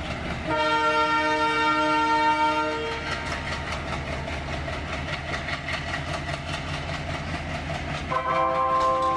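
An Indian Railways diesel locomotive's multi-note horn sounds a blast of about two and a half seconds, then sounds again near the end, over the low, steady rumble of the departing passenger train.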